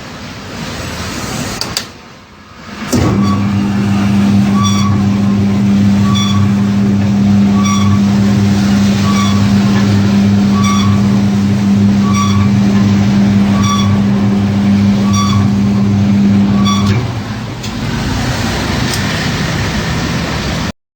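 Stainless-steel ribbon mixer's electric drive running with a loud steady hum, with a light tick repeating a little under once a second. The hum starts about three seconds in and drops to a quieter run about three-quarters of the way through.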